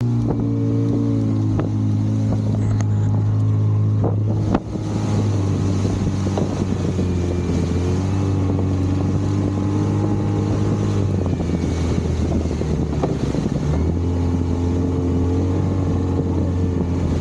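Outboard motor of a small boat running steadily at speed, with wind on the microphone. A few sharp knocks come in the first few seconds, the loudest about four and a half seconds in.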